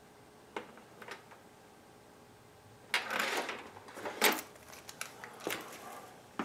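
Hand tools clinking and scraping against metal parts in a car's engine bay: a few light clicks, a half-second scrape about three seconds in, then a sharp metallic clank, with more clinks near the end.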